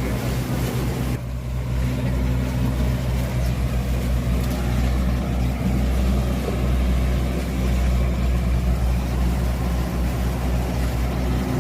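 A steady low engine hum under a constant rushing noise.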